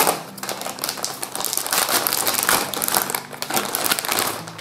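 Thin clear plastic bag crinkling and rustling as it is torn open by hand and pulled off a small paper box.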